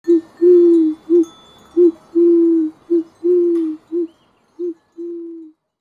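Common wood pigeon cooing: a run of low, hollow coos, short notes alternating with longer, slightly falling ones, ending on a long coo.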